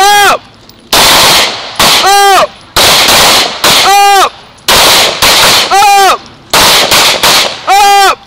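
Pistol fire from several shooters at once: about a dozen sharp, very loud shots in an uneven string, one to two a second, many followed by a brief ringing tone.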